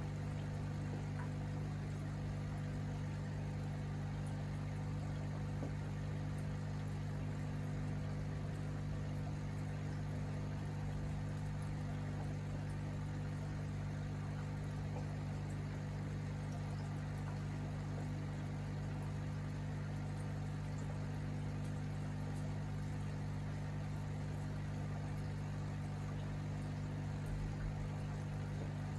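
Aquarium air pump humming steadily, with faint bubbling of air rising through the tank water.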